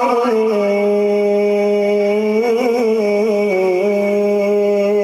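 A man's voice chanting Quran recitation (tilawah), holding one long melodic note with small ornamental turns and a brief dip in pitch about three and a half seconds in. It is the drawn-out closing phrase "sadaqallahul 'aliyyul 'azim".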